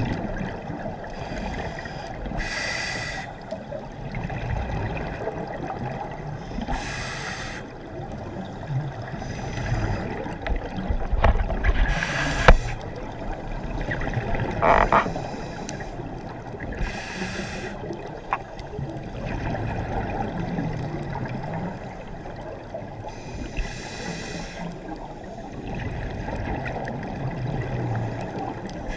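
Scuba diving underwater: exhaled bubbles hiss from a regulator every few seconds over a steady low underwater rumble, with a few sharp clicks.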